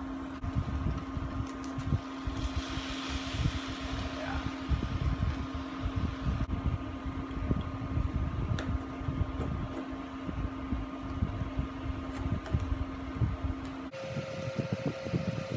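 Portable induction cooktop humming steadily under its cooling fan while vegetables are tipped into the hot pan and stirred, with the wooden spatula scraping and knocking against the pan. A brief sizzle comes about three seconds in as the vegetables land.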